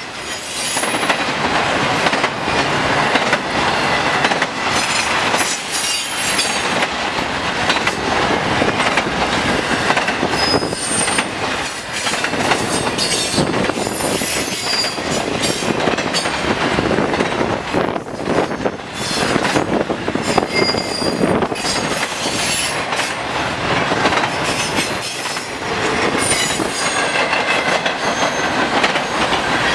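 Freight cars of an intermodal train loaded with highway trailers rolling past at speed: a steady rumble and clatter of steel wheels on the rails, broken by short high-pitched wheel squeals.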